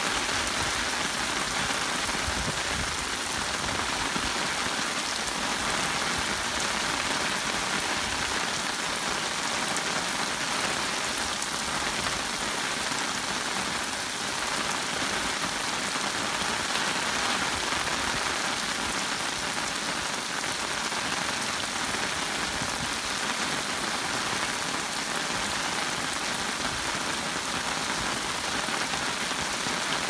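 Steady rain falling, an even hiss of many drops.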